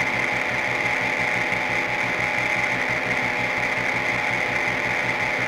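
Harsh noise music: a loud, dense, rapidly pulsing machine-like buzz with a strong bright high band, holding at an even level.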